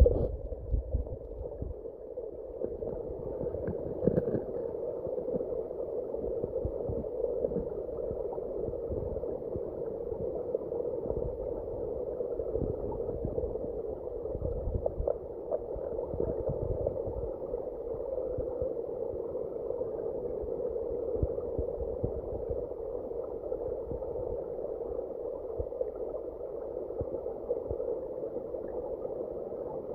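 Creek water flowing over a rocky bed, heard dull and muffled from a camera held underwater. Scattered low knocks and clicks come through, the strongest right at the start and another about four seconds in.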